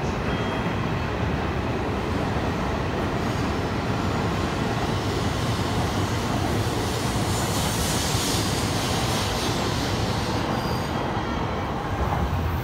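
H5 series shinkansen, coupled to an E6, pulling out and gathering speed past the platform: a steady rumble of wheels and running gear. A high hiss swells about seven seconds in and fades about three seconds later.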